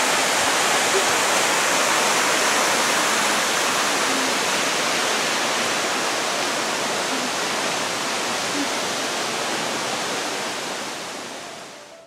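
Rushing water of a waterfall and stream: a steady, even noise of falling water that fades away over the last second or so.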